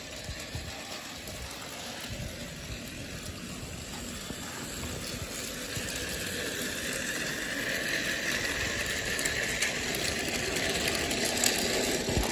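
Battery-powered toy train engine whirring steadily as it hauls a short train of toy trucks along plastic track, with a light rattle of wheels. It grows louder and brighter through the second half.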